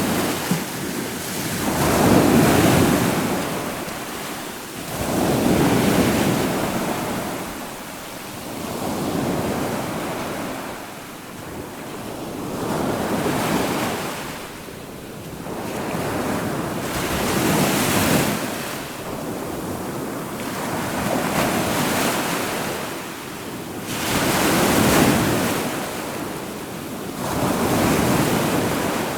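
Ocean waves breaking and washing on the shore, a swell of surf rising and falling every three to four seconds.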